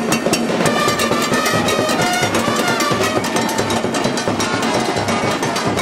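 Live Cuban comparsa band playing: bass drums and other percussion beating a dense, driving rhythm, with a melody line above it.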